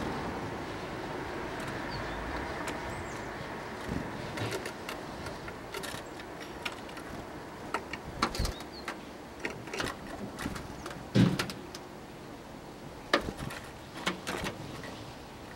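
Distant traffic fading away, then short high calls and scattered light clicks and knocks from tits coming to a wooden bird feeder, with two sharper knocks in the last third.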